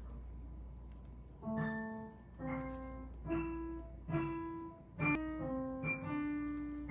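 Background music: a piano playing a slow melody, a note or chord about every second, starting about one and a half seconds in.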